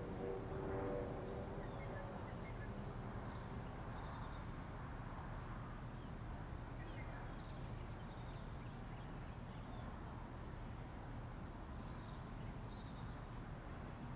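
Outdoor background: a steady low rumble, with faint, short high-pitched chirps now and then.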